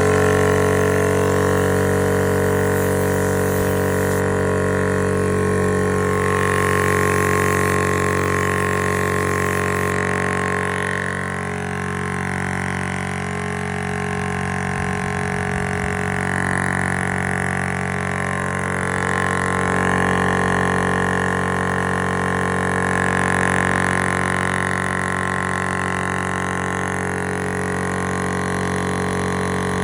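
Vevor PCP high-pressure air compressor, oil-filled and water-cooled, running with a steady droning hum.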